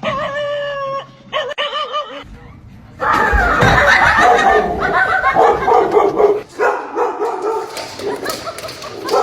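A dog vocalizing: a drawn-out, high howling note, then a shorter wavering one, followed from about three seconds in by a longer, louder stretch of howling and yipping.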